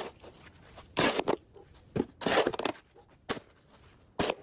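A handful of short crunching, scraping noises in snow, each lasting well under a second.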